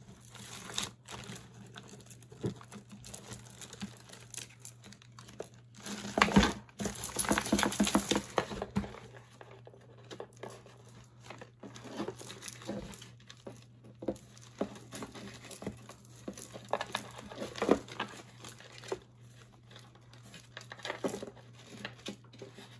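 Hands sorting through a tangle of costume jewelry chains and beads, giving scattered clinks and rattles. A denser burst of rattling comes about six to nine seconds in, as the tangle is pulled at.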